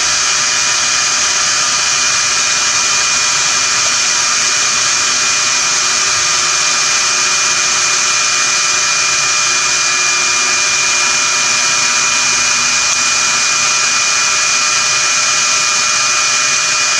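Conair Infiniti Pro hair dryer running steadily on its low setting, a loud even rush of air with a steady high motor whine, blowing on a small ball bearing to dry acetone out of it.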